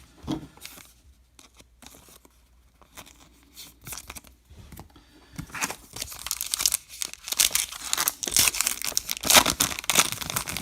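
Baseball card pack wrapper being crinkled and torn open, sparse rustling at first, then dense crackling from about halfway through, loudest near the end.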